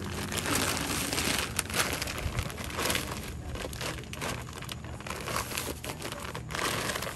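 A plastic bag crinkling and rustling in irregular bursts as it is handled to make a sandbag.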